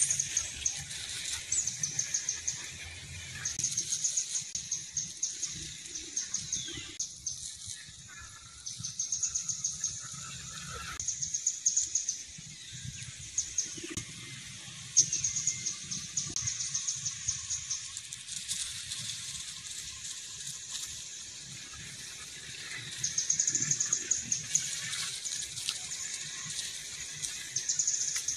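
A small bird repeating short, high-pitched trilling calls. Each trill is a quick run of ticks lasting a second or two, with a few seconds between trills, over a faint low rumble.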